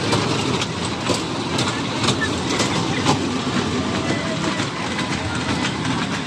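Kiddie amusement-ride train rolling round its small circular track, its wheels clicking irregularly over the rail joints under a steady rumble.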